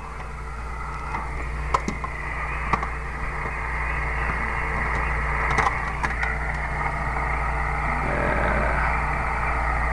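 A few sharp clicks and knocks as the metal case of a CB radio is handled and fitted, over a steady low hum and hiss that grows slightly louder after a few seconds.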